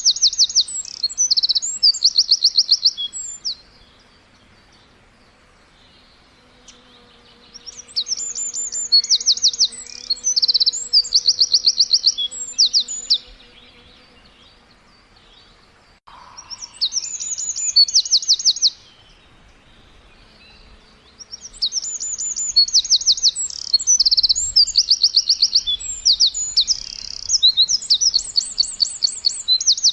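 Songbird chirping in bouts of fast, high-pitched repeated notes, each bout lasting a few seconds, with quieter pauses between bouts.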